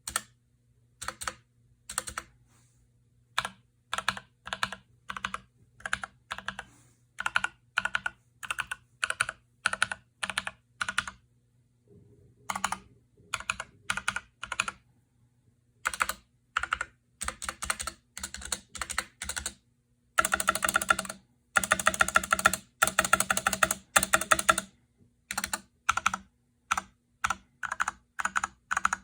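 Typing on a Drop CTRL mechanical keyboard with Glorious Panda tactile switches, lubed with G Lube and filmed. The keystrokes come in short groups of a few keys, then in a run of fast continuous typing about twenty seconds in, then in short groups again.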